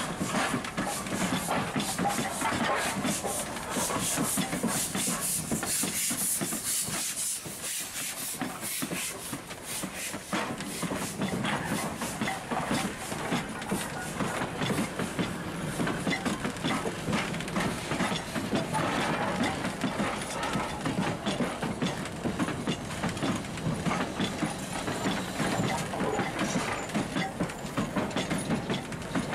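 Steam locomotives rolling slowly past on the track, their wheels clicking steadily over the rails, with steam hissing, strongest about five to seven seconds in.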